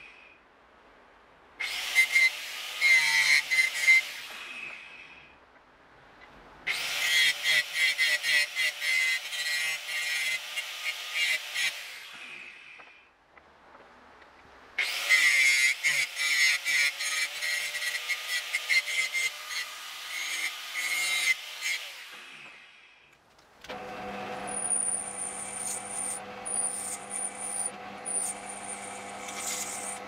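An angle grinder cutting steel in three separate bursts, each trailing off as the disc spins down. About three-quarters of the way through, a drill press starts running steadily with a high whine as its bit drills through a small steel piece.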